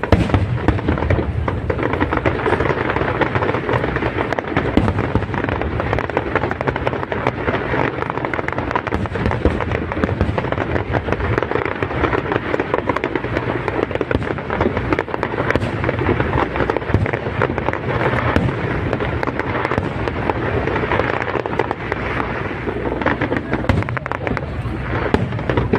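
Aerial fireworks going off in a dense, unbroken barrage of bangs and crackling.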